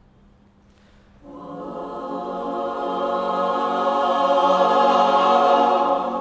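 Mixed choir singing a cappella: a sustained chord comes in about a second in and swells steadily louder, easing off slightly near the end.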